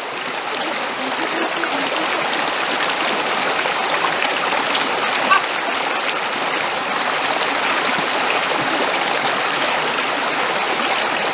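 Steady rush of a flowing river's water, an even noise that holds at one level throughout.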